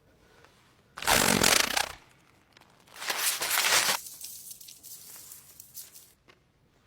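The howler, an enchanted red letter, blows a loud rasping raspberry about a second in. About two seconds later it rips itself to shreds with a loud tearing burst, and paper crackles and rustles before dying away.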